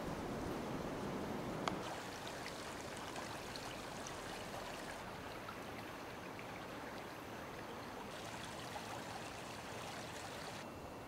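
Shallow creek flowing over rocks and logs, a steady soft rush of water. Wind buffets the microphone with a low rumble for the first couple of seconds.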